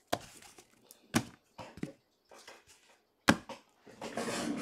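Handling noises: a plastic-cased trading card and other items being picked up and set down on a desk, with three sharp knocks (at the start, about a second in, and a little after three seconds) and lighter taps between them, then a short rustle near the end.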